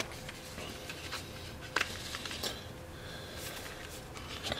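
Card and paper packaging being handled as a thin card insert is lifted from a box. Light rustling with a few soft clicks and taps, the sharpest a little under two seconds in.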